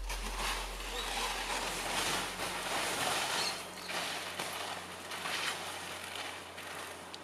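Skis hissing through snow in a run of turns, a swish about once a second. A low note fades out under the first few seconds.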